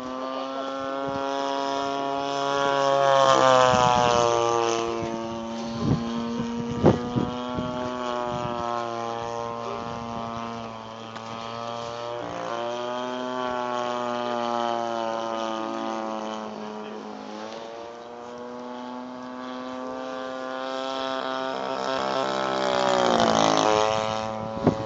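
Gasoline-engined RC model airplane flying overhead, its engine and propeller running steadily. The pitch drops as it passes about four seconds in, and rises and falls again near the end. A couple of sharp knocks come about six and seven seconds in.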